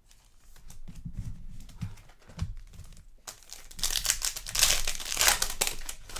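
Trading-card pack wrapper crinkling and tearing as a pack is opened. Light handling clicks come first, then the crackle of the wrapper, loudest over the last three seconds.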